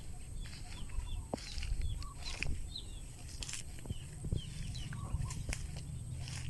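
A flock of young chickens peeping: many short, high chirps overlapping one another, with a few sharp knocks among them.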